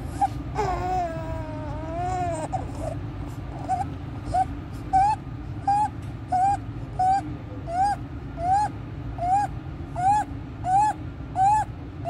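Newborn's cry, then a high-pitched crowing noise with every breath in, about one and a half a second, each rising in pitch: inspiratory stridor, the sign of a narrowed upper airway, worse with crying.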